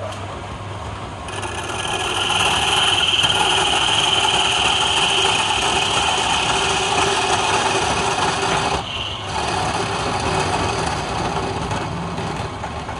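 Wood lathe motor humming while a hand-held chisel cuts into a spinning palm-wood blank, a continuous scraping cut. The cut starts about a second in, breaks off briefly near nine seconds, then goes on a little quieter.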